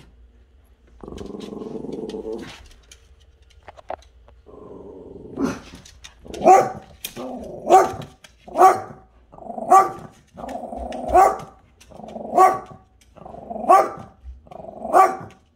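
Small dog growling, then from about four seconds in a run of low growls, each ending in a sharp bark, about one bark a second. The dog is growling and barking at a cat outside the window.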